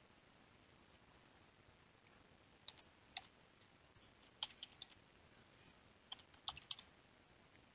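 Keystrokes on a computer keyboard, faint: three short bursts of a few taps each, with near silence between them.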